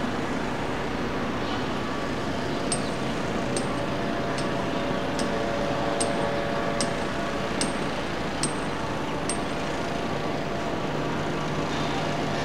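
Steady distant jet noise of a widebody twinjet airliner on final approach, mixed with steady outdoor city noise. Through the middle come about nine short, sharp metallic clinks, evenly spaced a little under a second apart, and a low hum sets in near the end.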